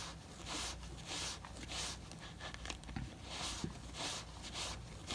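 Soft rubbing strokes on beaver-tail leather as leather balm is worked over and buffed into the skin: a faint swish repeating about once or twice a second.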